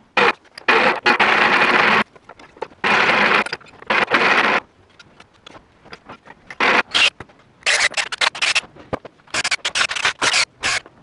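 A hand tool scraping wood in irregular strokes. Some strokes last about half a second to a second, and others come in short, quick runs.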